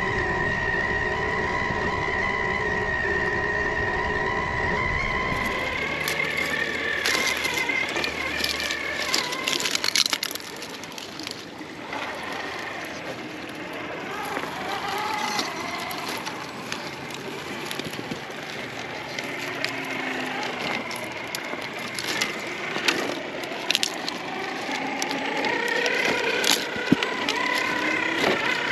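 RC rock crawler's electric drivetrain, a Hobbywing XeRun Axe 540L brushless motor and gears, whining steadily at first. From about six seconds in the whine rises and falls with the throttle, while the tyres crunch and clatter over loose rocks with sharp knocks of stone.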